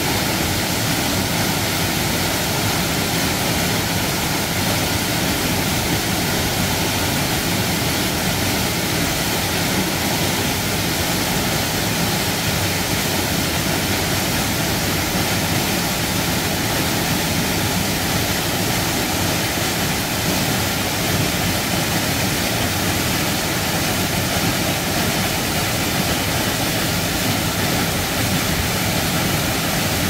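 A waterfall about 20 m high pouring into a rock plunge pool: a loud, steady rush of falling water that never changes.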